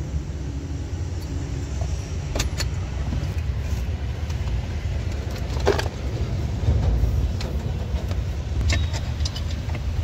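A few scattered metallic clicks and clinks from a ring spanner tightening the 14 mm steering-column bolts, over a steady low rumble.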